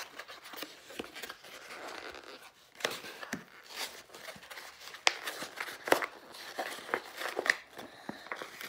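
Cardboard product packaging being handled and pulled off a rubber dog ball: irregular scratchy rustling, tearing and sharp snaps.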